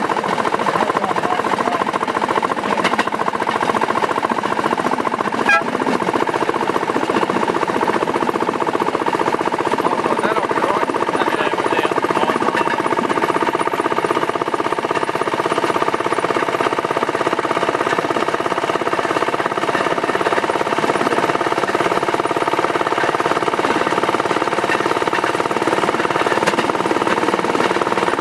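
A rail section car's (speeder's) small engine running steadily as the car travels along the track, with one sharp click about five and a half seconds in.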